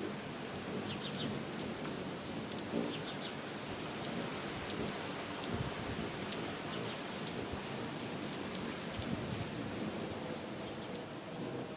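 Small bird chirping: many short, high, thin chirps and ticks, with a longer high thin call held for a few seconds in the second half, over a steady background hiss.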